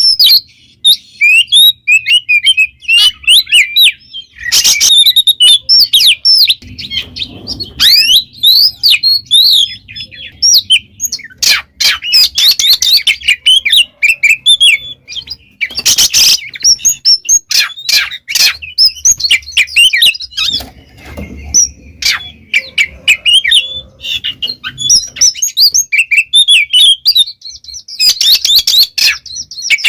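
Oriental magpie-robin (kacer) singing continuously in a fast, varied stream of whistles and chirps, broken by a few louder, sharp bursts. This is the loud, sustained song that keepers call gacor.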